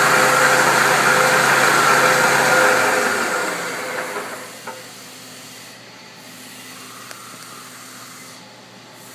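CNC milling machine running with a steady hum and hiss, then winding down about three seconds in and fading over the next two seconds to a much quieter machine hum, with a couple of faint clicks.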